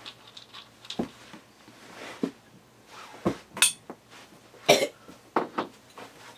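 Chewing of dry dog-food kibble with scattered short clicks and knocks, and one louder noise about three-quarters of the way through.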